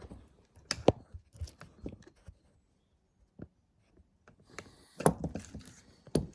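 Handling noise: scattered clicks, light knocks and rubbing as things are moved about and set up by hand, with a quiet stretch in the middle and a busier run of knocks and rubbing near the end.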